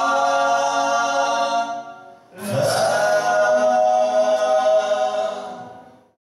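The closing chords of a song: men's voices sing long held notes in harmony with acoustic guitars. A second held chord comes in about two and a half seconds in and fades away to silence near the end.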